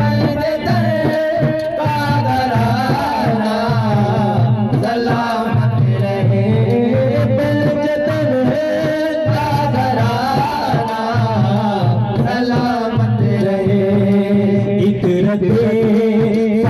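Male voices singing a Sufi devotional song into microphones, with hand-beaten frame drums (dafs) keeping a steady rhythm over a low, steady hum.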